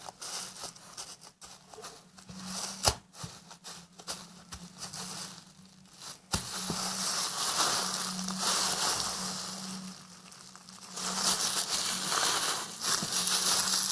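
Plastic freezer bag full of soapy foam being squeezed and kneaded by hand: the plastic crinkles and the foam crackles inside. There are scattered clicks at first, then longer, denser stretches from about six seconds in.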